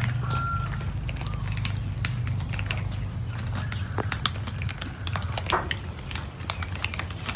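Several cats crunching dry kibble: a rapid, irregular clicking, over a steady low hum.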